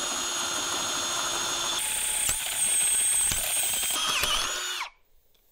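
Ryobi One+ HP cordless drill spinning a step drill bit through 16-gauge steel tubing, enlarging a pilot hole step by step up to 1/2 inch. The motor's whine gets louder and higher about two seconds in, with a couple of sharp clicks, then winds down in pitch and stops near the end.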